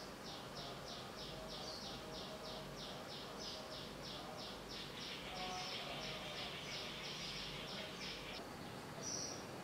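A small bird calling in a rapid, even series of high chirps, about four a second, that stops near the end, followed by one or two single chirps.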